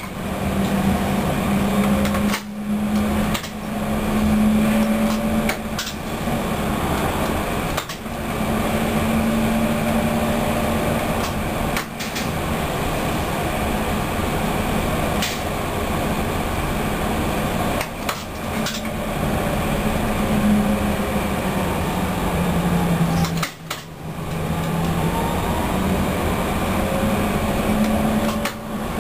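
Light-rail car running along its track: steady wheel-on-rail and running noise with a low motor hum and occasional sharp clicks. In the second half a motor whine falls in pitch and then rises again.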